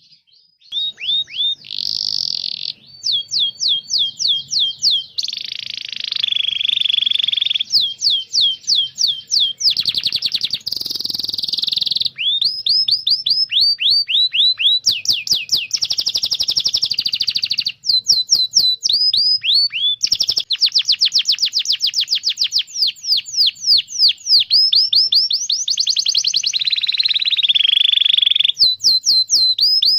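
Domestic canary singing a long, continuous song. Quick runs of falling whistled chirps, several a second, alternate with rolling, buzzy trills.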